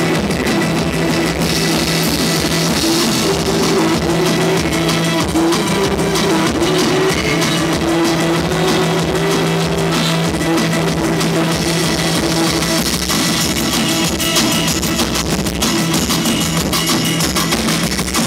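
Live rock band playing loud: drums and cymbals pound over a steady held droning note, and the cymbal crashing grows heavier a little past halfway.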